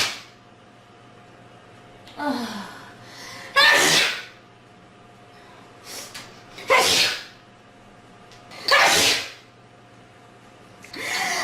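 A person sneezing again and again: four loud sneezes about two to three seconds apart, the first led in by a rising "ah" breath.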